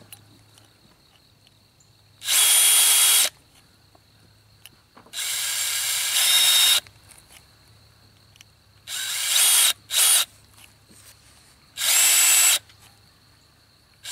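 Cordless drill boring holes through a plastic bottle cap in short bursts: the motor whines up to speed, runs about a second and stops, five times with pauses of a couple of seconds between.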